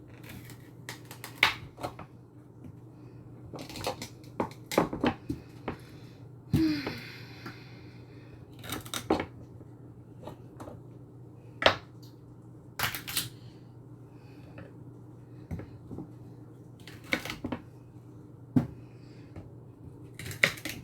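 Irregular knocks and clacks of kitchen prep work, some in quick little clusters like a knife tapping through celery on a cutting board, with a brief scraping rustle about seven seconds in, over a steady low hum.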